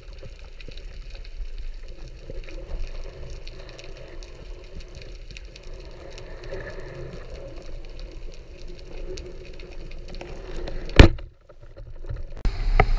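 Underwater ambience: a steady crackle of many tiny clicks over the seagrass bed. About eleven seconds in comes a single loud, sharp snap. The sound then drops out for about a second, and a low rumble of boat and wind noise starts just before the end.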